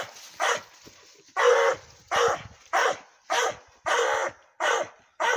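Hog-hunting bay dog barking at a hog, baying it: about eight hard barks in a steady rhythm, roughly one every two-thirds of a second.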